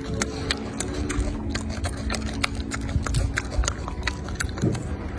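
Golden snub-nosed monkey chewing a mouthful of banana close to the microphone: irregular wet clicks and smacks of its mouth, several a second.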